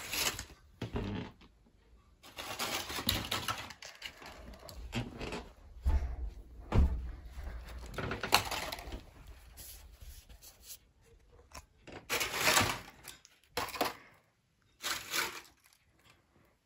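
Crisp fried wafers and newspaper rustling and crinkling in irregular spurts as they are handled and set down, with a few sharp knocks.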